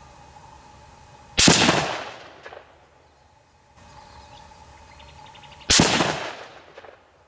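Two rifle shots from a Howa 1500 Mini Action in .223 Remington, about four seconds apart, the first about a second and a half in. Each is a sharp crack followed by an echo that fades over about a second.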